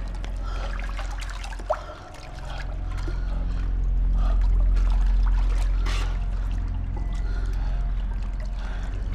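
Water splashing and trickling, as of people moving through water, over a steady low droning background.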